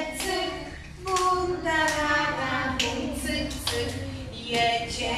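A children's song sung with hand claps keeping the beat: a melodic voice with sharp claps about every half second to second.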